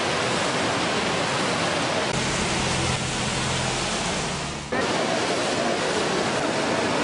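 Steady rushing noise of the flooded Bharathapuzha river's fast, churning water. From about two seconds in, a low steady hum joins it; this stops abruptly a little before five seconds in, leaving the water noise alone.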